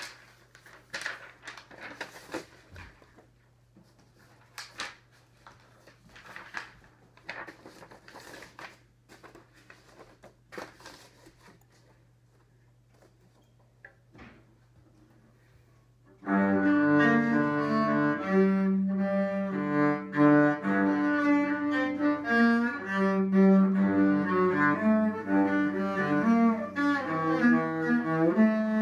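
Soft scattered clicks and rustles for the first sixteen seconds or so, then a cello starts being bowed, playing a melody of sustained notes that run into one another.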